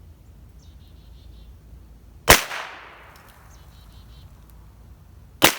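Two shots from a Heritage Rough Rider .22 single-action revolver, about three seconds apart, each with a short echoing tail. Each shot is preceded by a run of light metallic clicks as the hammer is cocked and the cylinder turns.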